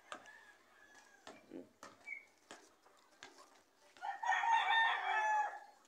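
A rooster crowing once, starting about four seconds in and lasting under two seconds. Before it, faint clicks and rustling come from bean vines being handled.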